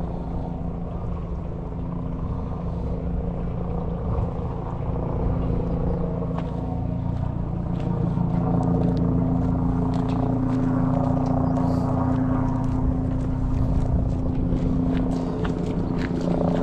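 A ferry's engine running steadily: a low hum made of several steady tones over a noisy rumble, growing louder about halfway through, with a few sharp clicks near the end.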